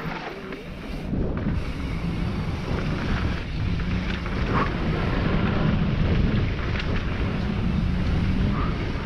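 Wind buffeting the microphone of a mountain biker's camera on a fast downhill run, over the rumble and rattle of the bike's tyres on rough dry dirt, with a few sharp knocks. It gets louder about a second in.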